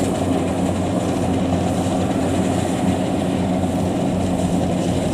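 Kubota DC70 combine harvester's diesel engine running steadily as the machine cuts rice and crawls on its tracks through soft, waterlogged mud; an even, low drone.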